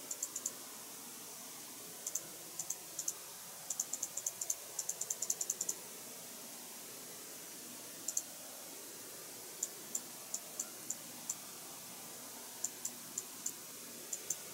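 Small, sharp, high-pitched clicks and taps in irregular quick runs, with a dense flurry in the middle and scattered single clicks later, from hand-painting small plastic model parts with a fine brush; faint steady room hiss underneath.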